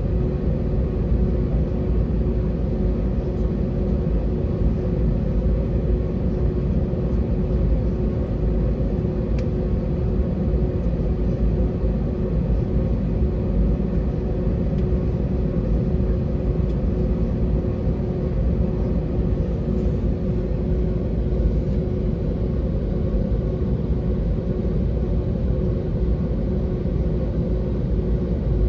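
Airliner's jet engines running at low power, heard inside the cabin: a steady rumble with a steady hum over it.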